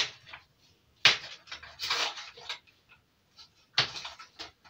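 Kitchen knife cutting up a block of butter, knocking sharply against the surface beneath several times, a second or so apart, with a short scrape in between.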